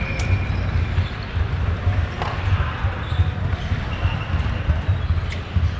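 Ice hockey rink ambience: a constant low rumble with three faint, sharp knocks from play on the ice, and faint distant voices.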